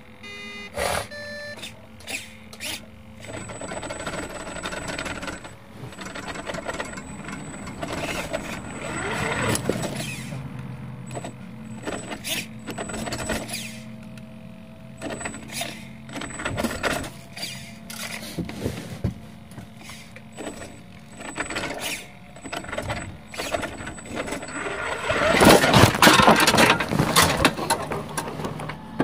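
Small motor of a Tonka Chevron toy tow truck running, with irregular knocks and rattles as it rolls along, and a louder burst of clattering near the end.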